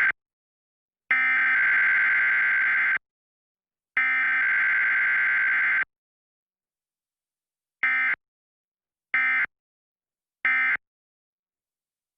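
Emergency Alert System SAME digital data bursts, a harsh warbling two-tone signal. The header burst is sent twice more, each about two seconds long with a second's gap, and then, about two seconds later, three short end-of-message bursts come about a second and a quarter apart. No attention tone sounds between header and end-of-message.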